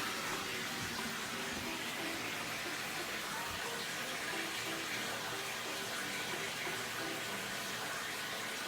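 Tap water running steadily into a bathtub, an even rushing splash.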